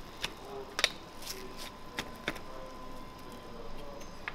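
Knife and metal spatula clicking and scraping against an aluminium künefe tray as the crisp baked kadayıf is sliced and lifted: a scatter of sharp, irregular clicks over a faint steady hum.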